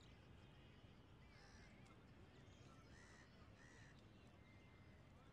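Near silence: faint outdoor ambience with a few faint, short bird calls.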